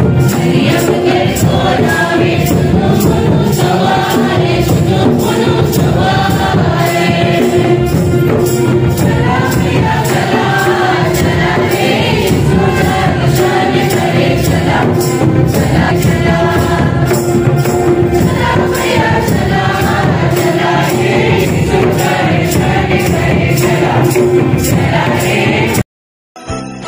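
A group of voices singing a hymn over a steady percussion beat. It cuts off abruptly near the end.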